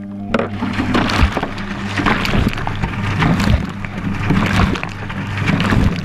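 Washing machine motor starting abruptly with a steady low hum as the drum turns, with dense knocking and clattering of the load tumbling, heard from a camera inside the drum.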